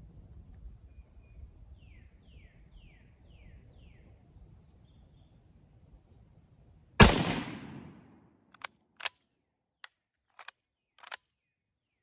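A single rifle shot from a Carcano cavalry carbine chambered in 7.35 mm Carcano, about seven seconds in, dying away over about a second. A few short sharp clicks follow.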